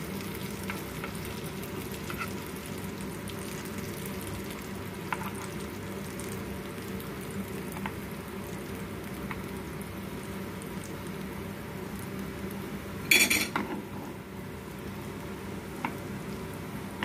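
Banana laddus shallow-frying in butter in a nonstick pan, a steady gentle sizzle, with light clicks of a spoon turning them now and then and one brief louder clatter about thirteen seconds in.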